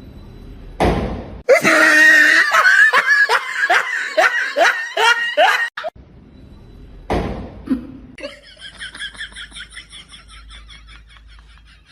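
A person laughing hard in a loud run of short "ha" bursts, each falling in pitch. It is followed, after a short break, by a quieter, higher run of quick pulses.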